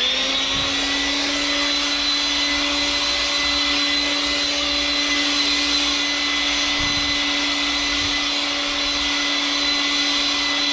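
RIDGID 18V cordless handheld blower running at a steady full speed: a steady motor whine over the rush of blown air.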